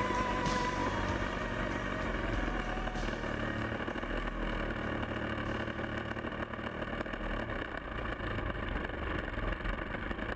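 ZDZ 160 two-stroke petrol engine of a large model aircraft, running steadily and heard close up from a camera on the fuselage, easing slightly in level toward the end.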